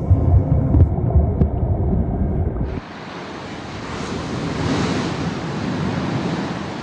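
A low, muffled rumble for the first few seconds, then, starting abruptly about three seconds in, surf breaking on a beach with wind buffeting the microphone.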